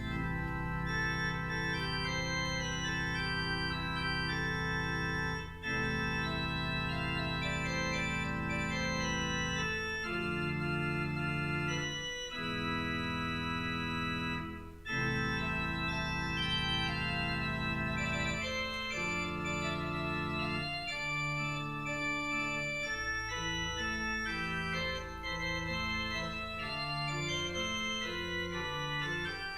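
Organ music: held chords over a sustained bass line, changing every second or two, with two brief breaks between phrases.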